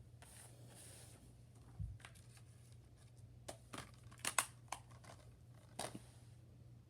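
Packaging being handled: a faint paper rustle, a low thud, then a series of sharp plastic clicks and snaps, about six of them spread over two and a half seconds.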